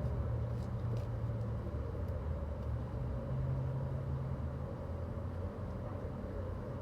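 Wind blowing against the microphone, a steady low rumble.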